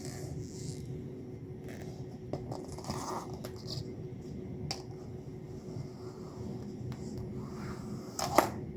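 Quiet handling sounds of rack rails being seated and pressed onto an adhesive-backed mat: light scrapes, rubs and small clicks, with a sharper knock near the end, over a steady low shop hum.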